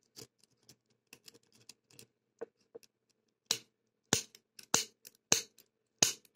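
Lock-picking tools working the pin tumbler of a CITY ISEO 60 mm padlock: faint metallic scratching and ticking, then, from about three and a half seconds in, a run of loud, sharp metallic snaps about every half second, struck with a homemade snap breaker tool.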